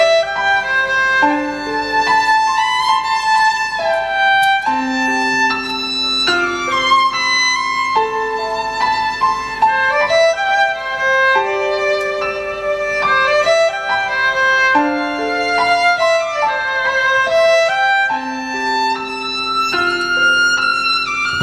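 Solo violin playing a slow, expressive melody with slides between notes, over long held lower accompanying notes that change every second or two.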